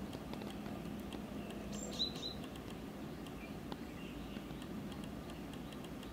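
Outdoor background noise with a steady low rumble and faint scattered ticks. A bird gives two short high chirps about two seconds in.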